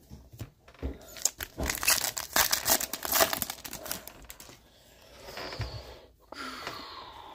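Shiny plastic wrapper of a Topps baseball card pack crinkling and tearing as the pack is opened, a dense crackle loudest from about one to four and a half seconds in.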